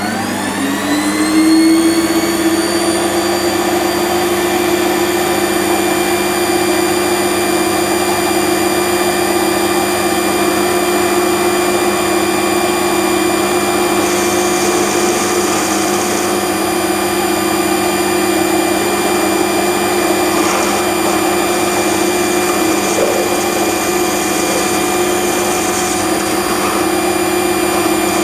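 Benchtop metal lathe starting up: the motor's whine rises in pitch over the first couple of seconds, then the motor and spindle run steadily at speed as a high whine made of several tones. A light hiss comes and goes twice in the second half.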